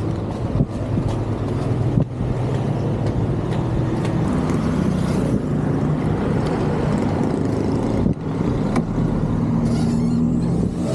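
Car on the move: a steady engine hum with road noise, the engine note shifting a little near the end.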